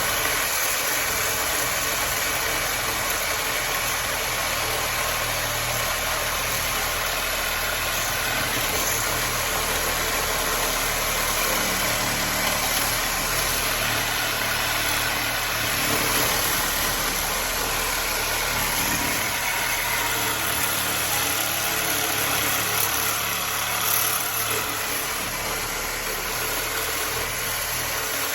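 Electric power saw running steadily, its blade cutting through a microwave magnetron's metal body.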